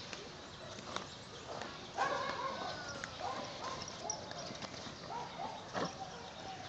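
A horse going down and rolling on its back in dry dirt, with dull thumps of its body and hooves against the ground, about a second in and again near the end.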